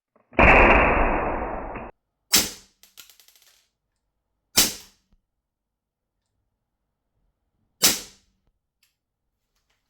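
Three single airsoft pistol shots, sharp cracks a couple of seconds apart, after a loud rushing hiss that lasts about a second and a half.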